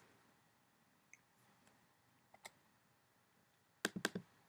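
Faint clicks of computer keys being pressed, a few scattered ones and then a quick run of about four clicks near the end.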